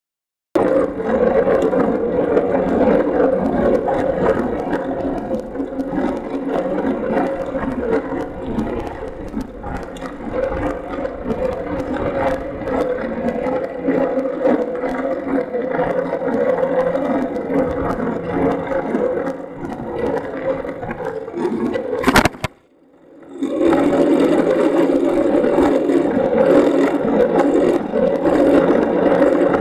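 A bicycle being ridden, heard through a camera mounted on it: a steady rumble with rattling and many small clicks. It starts about half a second in; around three-quarters of the way through a sharp click is followed by a dropout of about a second, and then the rumble resumes.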